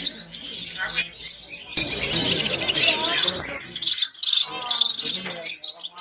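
A crowd of caged canaries chirping and trilling together in a dense, overlapping chorus, with people's voices talking underneath.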